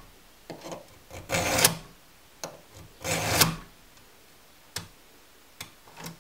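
Round chainsaw file rasping across a cutter tooth of the chain in two push strokes about a second and a half apart, sharpening the tooth. A few light metallic clicks follow.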